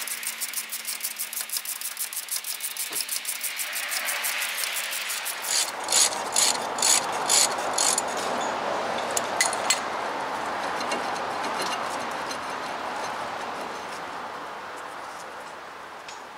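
Ratchet wrench with a 17 mm socket clicking rapidly as it spins out a rear brake caliper bracket bolt, then a run of louder, slower clicks about two a second.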